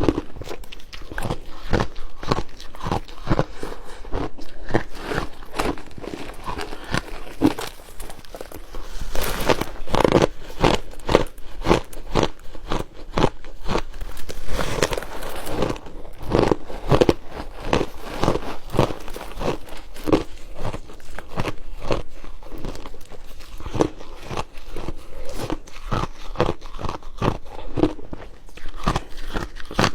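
Close-up crunching and chewing of refrozen shaved ice, a steady run of sharp crunches, several a second, without pause.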